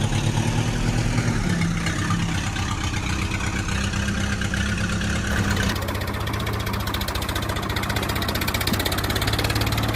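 An engine idling steadily with a fast, even pulse. About halfway through the sound changes abruptly to a different, lower-pitched running engine.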